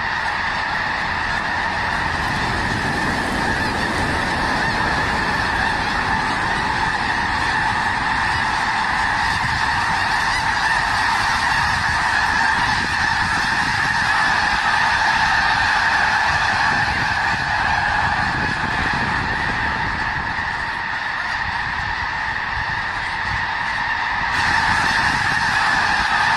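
A large flock of birds calling all at once: a dense, steady chorus of overlapping calls with no break.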